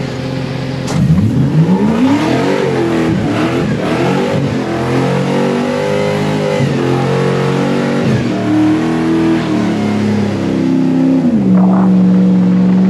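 Off-road side-by-side buggy's engine accelerating. Its pitch climbs sharply about a second in, then rises and falls with the throttle, and holds steady and high near the end.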